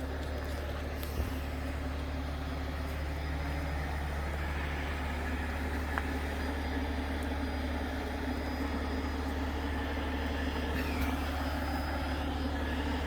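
Heavy wrecker's diesel engine running steadily at low revs, a deep even drone, with a faint click about a second in.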